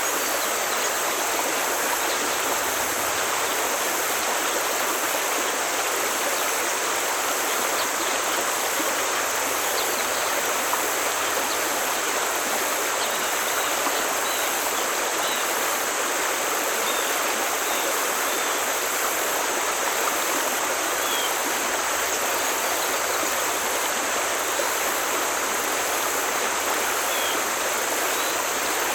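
Forest stream flowing over rocks: a steady, even rush of water, with a few faint high chirps in the second half.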